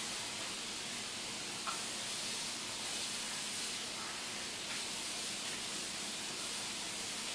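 Steady high hiss of turkey meat sizzling in a frying pan, with one light click near two seconds in.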